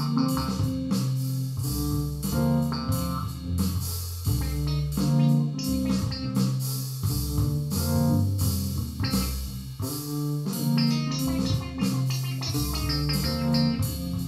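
Instrumental jam music: plucked guitar-like notes over a moving bass line, with a regular rhythmic pulse.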